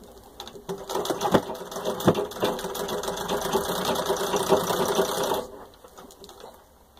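1923 Singer 66 treadle sewing machine run at full speed, stitching through six layers of denim: a fast, even clatter of needle and mechanism that builds up over the first second and winds down to a stop about five and a half seconds in. This is a full-speed test for skipped stitches.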